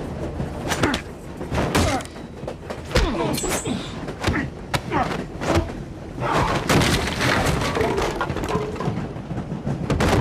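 Film fight sound effects: a rapid string of heavy thuds, slams and crashes as two men grapple and are thrown against the walls and doors of a train carriage, over a steady low rumble.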